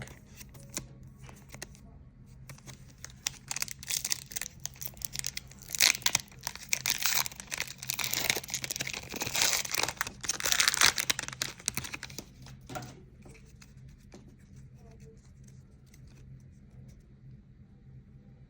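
Foil Pokémon booster pack wrapper being torn open and crinkled, a dense crackling from about three seconds in until about twelve seconds in, then fainter handling rustles.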